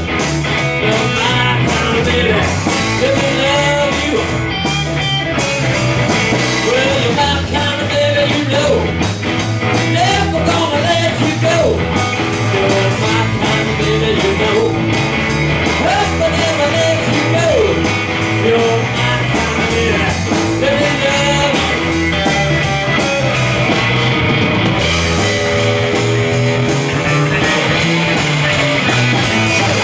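Live blues-rock band playing: two electric guitars over a drum kit, with a lead line that bends and slides in pitch over a steady beat.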